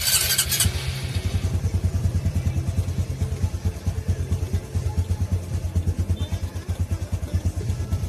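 Honda RS125 Fi's single-cylinder fuel-injected four-stroke engine idling with a quick, even beat, after a brief burst of noise at the very start.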